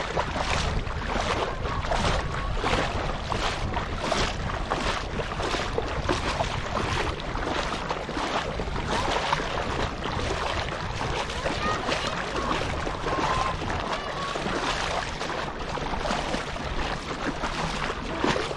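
Shallow seawater sloshing and lapping against a camera held right at the water's surface, with a steady run of small uneven splashes.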